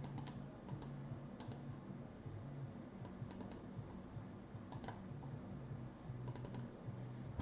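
Quiet clicks of a computer mouse and keyboard, coming in small clusters of two to four every second or so, over a faint low hum.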